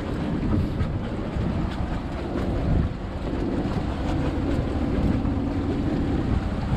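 Strong wind rushing over the microphone aboard a sailboat under way, with a steady low hum from the boat beneath it.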